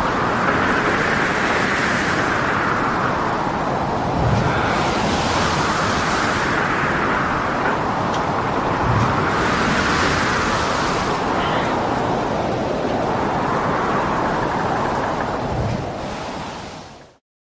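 Stormy sea: continuous wind and breaking waves, the roar swelling and easing about every four seconds, with a few low thuds. It fades out near the end.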